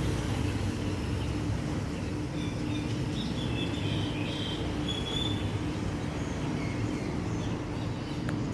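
Boeing 737-800's CFM56-7B turbofan engines rumbling steadily as the airliner passes over, with a few short bird chirps about halfway through.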